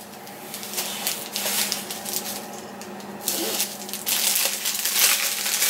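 Clear cellophane wrapping crinkling as it is handled and pulled off a candle, growing loud and dense about three seconds in.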